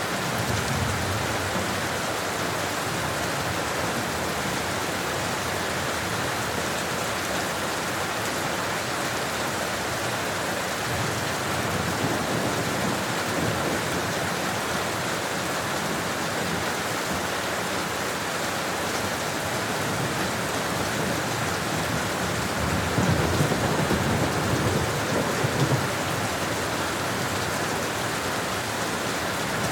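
Steady, continuous rain falling, an even hiss of drops with no pauses. A low rumble swells up about three quarters of the way through, then fades back into the rain.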